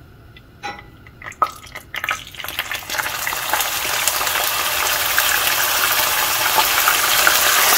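Blended onion paste hitting hot oil and sizzling: a few light knocks first, then about two seconds in the sizzle builds quickly and runs on steadily with a dense crackle.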